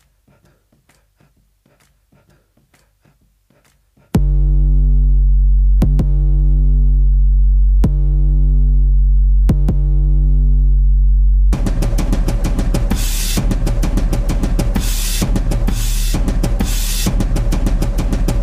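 Dance music with drums playing over a theatre's sound system. A faint, ticking beat gives way about four seconds in to a loud, deep, held bass note punctuated by a few heavy drum hits, and near the middle a full, fast drum-kit beat comes in.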